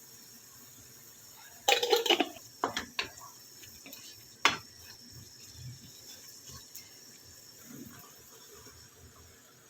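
A short splash of water in the kitchen for about half a second, followed by a few sharp clinks of utensils or dishes.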